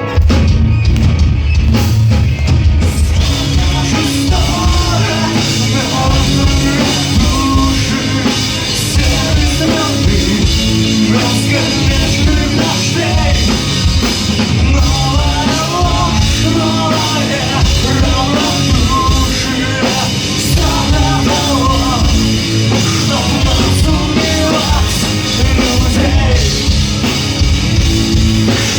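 Live rock band playing loud: drum kit, electric guitars and bass in a heavy punk-metal style. The full band comes in suddenly right at the start, after a quieter passage.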